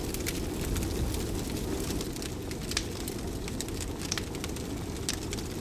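Bonfire burning: a steady low rush of flames with frequent sharp crackles and pops.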